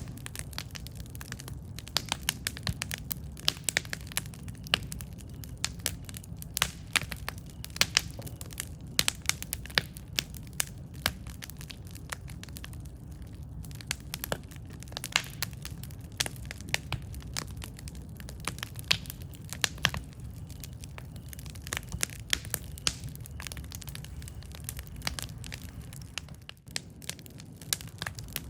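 Wood campfire crackling: many irregular sharp pops and snaps over a steady low rumble.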